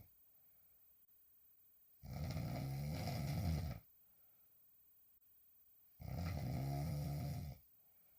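A woman snoring hard while lying on her back: two long snores about four seconds apart, each lasting nearly two seconds, with quiet gaps between.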